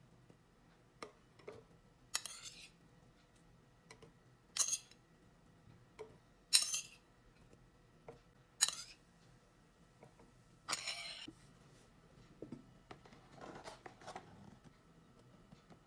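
A metal spoon clinking as it knocks avocado chunks into a plastic blender cup: five sharp clinks about two seconds apart, then a few softer taps and rustles near the end.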